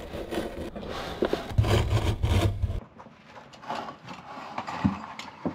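Utility knife blade cutting through vinyl lino floor covering in a series of short scraping strokes, busiest in the first three seconds and fainter after, with a low rumble about a second and a half in.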